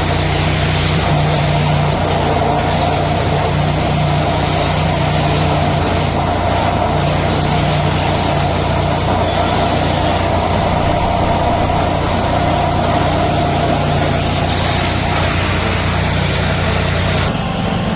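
High-pressure sewer jetter running steadily: its double engine drones under the loud hiss of water blasting from a 1/4 nozzle against a wooden board. The hiss drops away near the end.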